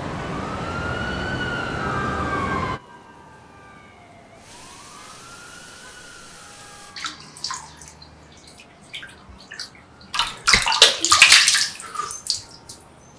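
City traffic noise with an emergency-vehicle siren wailing up and down, cutting off abruptly about three seconds in, then a fainter distant siren. From about seven seconds, tap water running into a sink and hands splashing water, the loudest splashes coming near the end as water is thrown onto a face.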